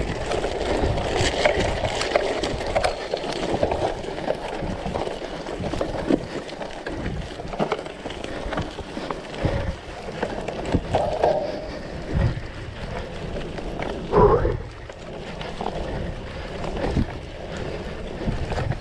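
Cyclocross bike ridden fast over a dirt, gravel and grass track: a steady rush of tyre and wind noise, broken by frequent knocks and rattles as the bike hits bumps.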